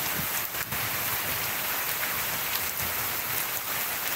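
Heavy rain falling steadily on leaves and wet paving, an even hiss.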